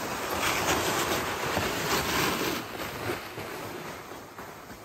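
Footsteps crunching through snow and a loaded pull sled dragging over it, fading as they move away.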